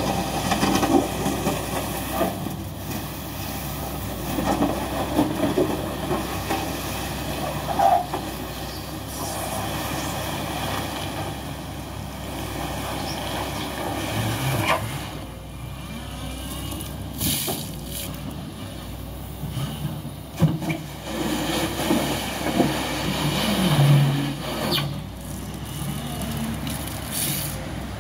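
Volvo excavator's diesel engine running steadily while the machine works, its noise rising and falling, with a few short hisses.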